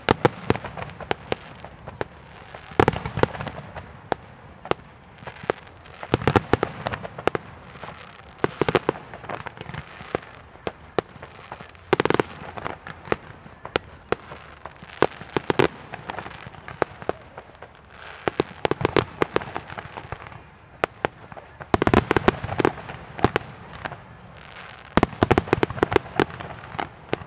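Fireworks display: aerial shells bursting and crackling in rapid strings of sharp bangs, with dense clusters every few seconds.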